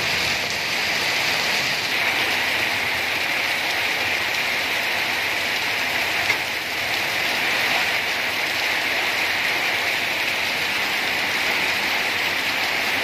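Very heavy rain pouring steadily onto a paved street, a constant even wash of rain noise. A single brief click comes about six seconds in.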